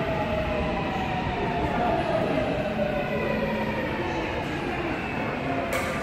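Seoul Metro Line 8 electric subway train pulling into the platform, its several whining tones falling steadily in pitch as it slows, over a low rumble. A sharp click near the end.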